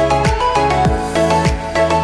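Background music with a steady beat: a deep kick drum that drops in pitch on each beat, under a repeating melody of short notes.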